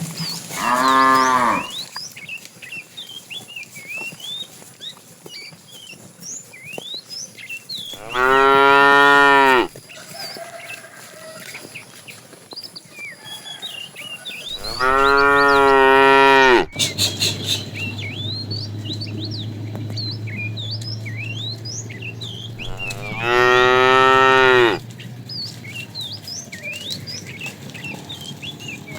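Cattle mooing: four long, loud moos several seconds apart, each dropping in pitch at the end. Faint high chirps fill the gaps between calls.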